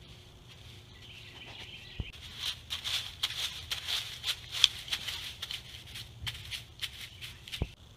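Thin wooden sticks scraping and poking in dry pine-straw mulch, a rapid irregular crackling and rustling that starts about two seconds in and runs for several seconds. A low thud comes at its start and another just before it stops.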